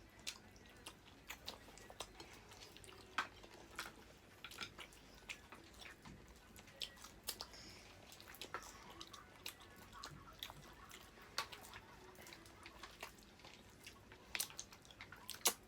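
Close-up mouth sounds of eating seafood: chewing and biting with irregular sharp clicks and cracks. The loudest come in a cluster near the end.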